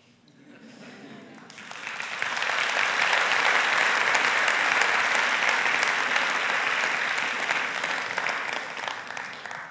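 Audience applauding a speaker in a large hall: the clapping starts softly, swells within about two seconds, holds steady, and dies away near the end.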